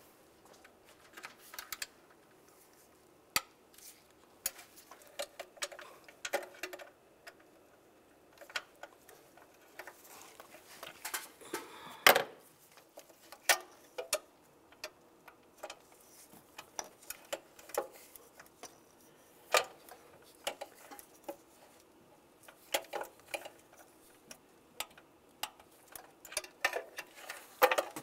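A ratcheting torque wrench clicking in short, irregular runs, with sharp clicks and taps of the tool on metal, as the intake bolts are tightened to torque.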